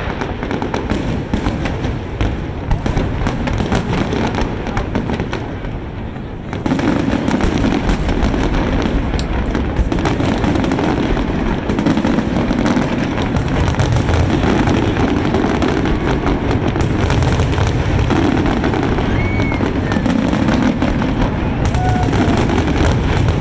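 Large fireworks display going off in a rapid, continuous string of bangs and crackles, growing louder and denser about six and a half seconds in.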